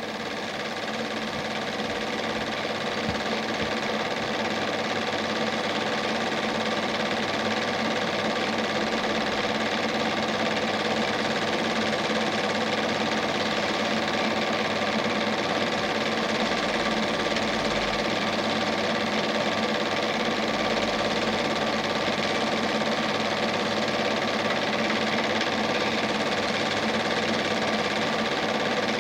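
Steady mechanical whirr and clatter of a Standard 8 cine film projector running, with a constant hum of several tones.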